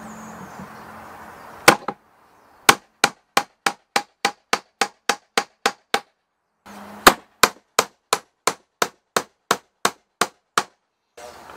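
HOTO claw hammer driving a nail into wood: one blow, then two runs of quick, even hammer blows about three a second, with a short pause between the runs.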